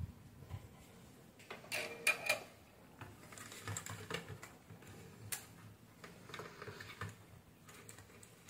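Light scattered clicks and taps of circuit boards being handled on a workbench, with a small cluster about two seconds in and a sharper single click about five seconds in.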